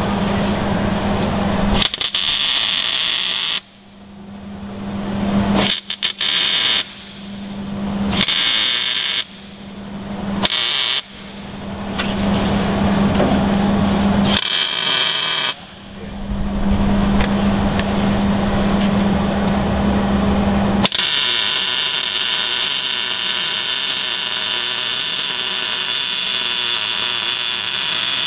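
MIG welder arc crackling as tabs are welded onto a steel rear axle housing: about ten short welds, each a second or a few seconds long, stopping and restarting, then one longer bead of about seven seconds near the end that cuts off suddenly.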